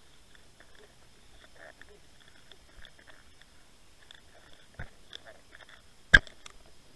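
Faint scattered clicks and crackles picked up underwater through a camera housing, over a thin steady electronic whine, with a small knock just before five seconds and a sharp, loud knock a little after six seconds as the camera swings.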